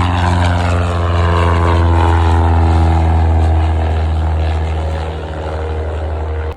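Propeller airplane engine running, a loud steady drone with a deep hum and a stack of pitched tones.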